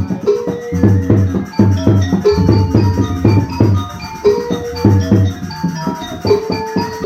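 Music of tuned struck percussion notes over a regular drum beat.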